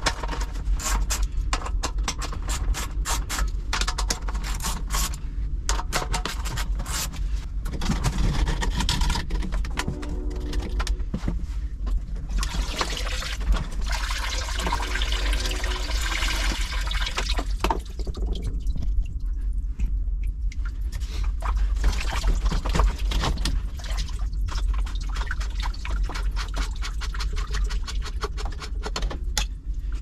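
Hands and tools clicking, knocking and scraping on a submersible sump pump, its pit lid and corrugated discharge hose while the check valve is being taken out. Water pours and splashes for several seconds near the middle.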